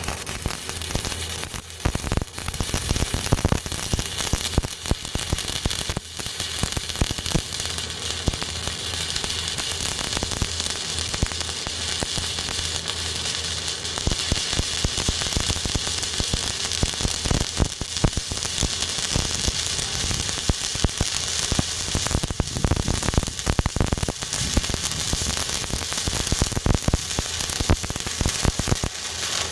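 Stick-welding arc on rebar: a steady, dense crackle that keeps going without a break.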